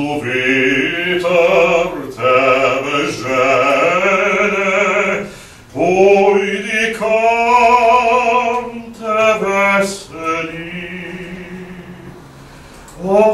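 Solo male bass-baritone singing: long held notes with vibrato, in phrases of a few seconds with short breaths between, the last phrase softer near the end.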